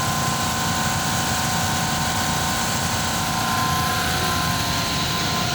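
Large air-conditioning unit running: a steady whir of fans and compressor with a few steady hums over it.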